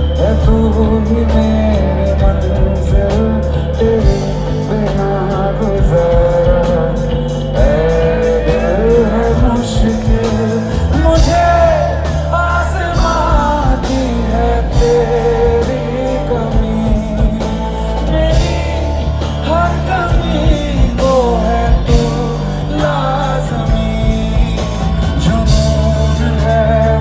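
A live band performance: a male singer singing a long, wavering melody into a microphone over a band with a steady bass and a regular drum beat.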